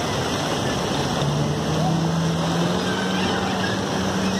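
Beach ambience of wind, lapping water and distant voices, with a motorboat engine's steady hum that comes in about a second in and rises slightly in pitch.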